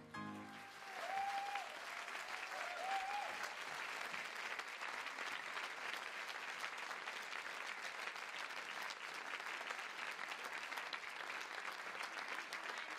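Theatre audience applauding warmly at the end of a sung performance, steady clapping throughout. A couple of short high calls from the crowd rise over the clapping in the first few seconds.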